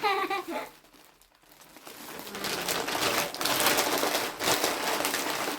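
Gift packaging being opened: crinkling, rustling and tearing, starting about two seconds in after a brief lull.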